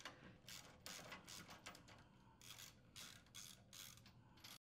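Socket ratchet clicking faintly in short irregular runs as it turns a nut off a bolt, stopping abruptly just before the end.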